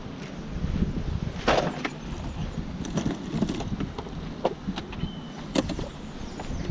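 Low rumble of wind on the microphone, with scattered light clicks and rustles of small items being handled; a brighter rustle about a second and a half in.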